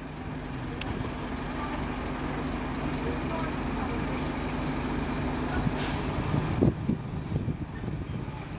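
Scania N230UD double-decker bus with its five-cylinder diesel pulling away, the engine running with a steady note. About six seconds in there is a short burst of air hiss, then the steady engine note stops and a thump follows.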